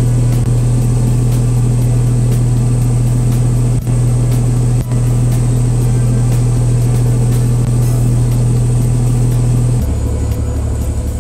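Fishing boat's engine running steadily under way: a loud constant low hum with the wash of water past the hull. About ten seconds in, it switches abruptly to a lower, rougher engine note.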